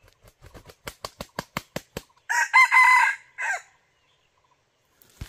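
Red junglefowl rooster flapping its wings in a quick run of claps that grow louder, then crowing once, a short crow in two parts.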